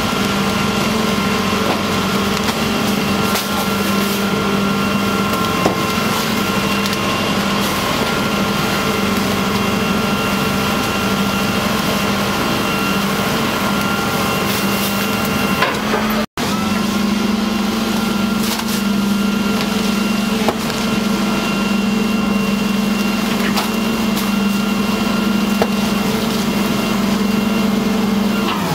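Rotary-type garbage truck running its compaction cycle: a steady engine and hydraulic drone as the rotating plate sweeps bags of waste into the body, with occasional knocks and crunches from the waste. The sound drops out briefly just past halfway.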